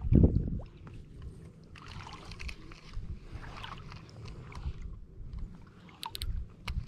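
Shallow bay water sloshing and swishing around a wading angler's legs, with wind rumbling on the microphone. A low thump opens it, and a few sharp clicks come near the end.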